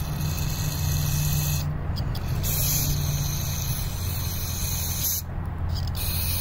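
Aerosol carburetor cleaner hissing out of a straw in three long bursts with two short breaks, blasting out the small holes and orifices of a varnished, gummed-up carburetor. A steady low hum runs underneath.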